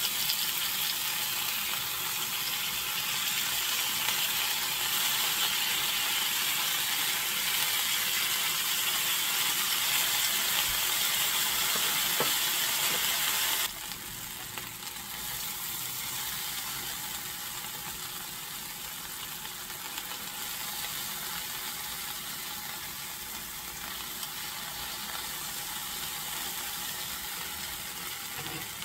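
Steaks sizzling as they sear in hot oil in a Le Creuset enameled cast-iron skillet, a steady frying hiss. About halfway through it suddenly drops to a quieter level and carries on.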